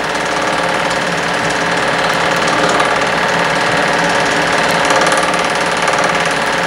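Home-movie film projector running, a steady mechanical whirr and rattle at an even pitch.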